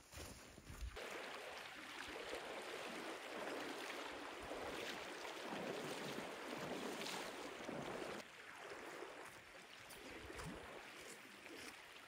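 Fast, shallow river flowing, with splashing from someone wading across it; starting about a second in, the water sound drops down somewhat about eight seconds in.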